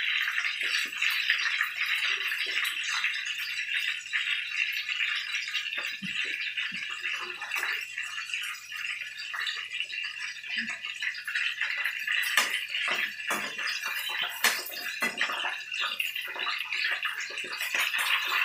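Minced pork and shrimp balls deep-frying in a pan of hot oil: a steady sizzle with many small crackles and pops.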